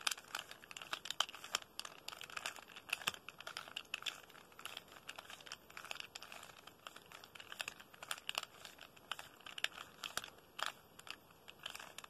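3x3 Rubik's Cube being turned quickly by hand through a repeated sequence of face turns: a fast, irregular run of plastic clicks and clacks as the layers snap round.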